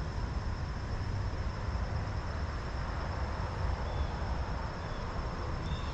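Steady outdoor background rumble with a faint high steady whine, and a few short high chirps in the last two seconds.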